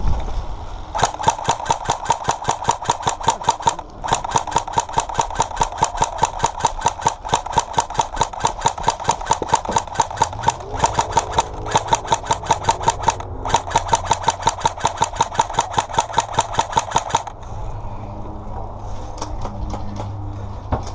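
Rapid, evenly spaced mechanical clicking, several clicks a second, that starts about a second in, breaks off briefly three times and stops a few seconds before the end. A low steady hum runs underneath throughout.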